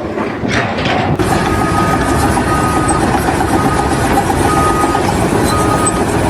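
Heavy engine running steadily, with a short high beep repeating about once a second over it. The engine comes in about a second in, after a quieter start.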